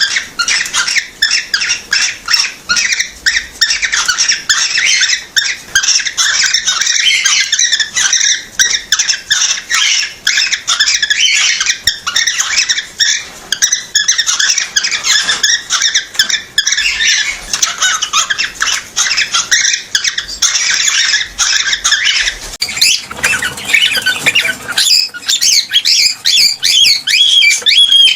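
Cockatiel chirping in a dense, rapid stream of short high notes. From a few seconds before the end, it switches to sliding whistled notes.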